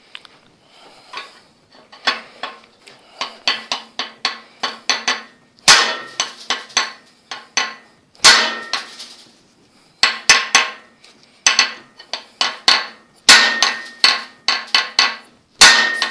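A fairly large hammer striking a steel bar braced under a seized piston in a Ford flathead V8 block. A run of light taps gives way to repeated hard, ringing metal blows every second or two, with smaller strikes between them. The piston does not move.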